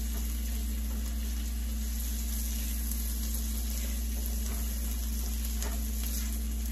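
Diced onions and green peppers sizzling in a skillet while a slotted spatula stirs and scrapes them through the pan, with a few faint scrapes later on. A steady low hum runs underneath.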